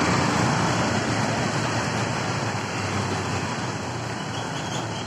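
Steady rushing wind noise on the microphone of a moving bicycle, over street traffic of motorbikes and cars. It eases slowly.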